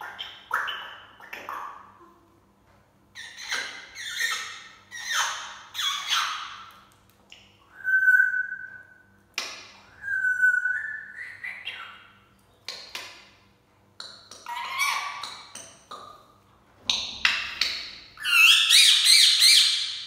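Pet parrots squawking and whistling: a string of short harsh calls, two clear steady whistles about eight and ten seconds in, and a long, loud run of harsh screeches near the end.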